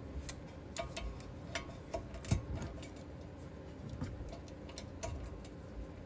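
Ratchet wrench clicking in short, uneven strokes, a few clicks a second, while working on the 21 mm front caliper bracket bolts.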